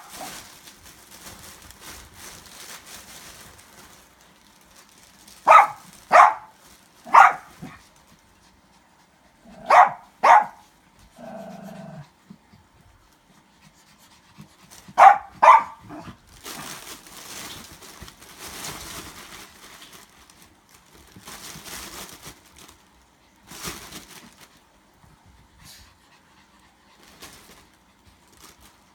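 Small dogs yapping: seven short, sharp barks in three quick bunches of three, two and two. Between them, faint rustling and crinkling of the fabric play tunnel as the dogs scramble around it.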